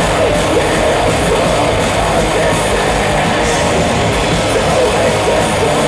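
Live band playing loud, distorted heavy metal with guitars and drums, a dense, unbroken wall of sound.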